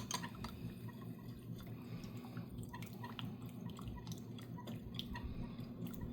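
A metal spoon stirring honey into hot water in a glass Pyrex jug: faint swishing of liquid with scattered light ticks of the spoon against the glass.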